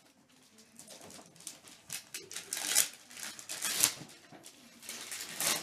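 Wrapping paper rustling and tearing as a gift is unwrapped by hand, in several short bursts, the loudest about three to four seconds in.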